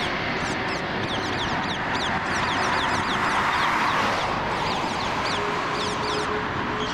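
Birds chirping rapidly, many short high calls each sweeping downward, over the steady rush of an Airbus A330-300's jet engines during takeoff, which swells slightly about halfway through.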